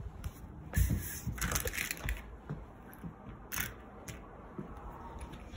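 A wooden interior door with a brass knob being handled: a run of knocks, scrapes and clicks, the clearest about a second in and again about three and a half seconds in, with rubbing and handling noise on the phone microphone between them.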